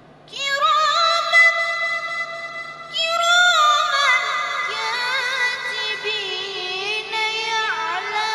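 A boy reciting the Quran in a melodic, chanted Egyptian mujawwad style, in a high voice with long ornamented notes. He begins a held, wavering note about half a second in, and starts a new phrase about three seconds in whose melody descends.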